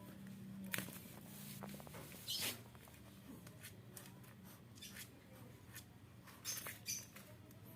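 Faint scattered scratches and short, sharp high-pitched sounds, made by a small dog and a pet bird moving about as they play.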